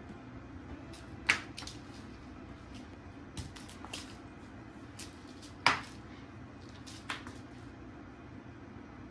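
A toy mouse on a string clicking and knocking on a wooden floor: about seven short sharp taps at uneven intervals, two much louder than the others, one about a second in and one about halfway through.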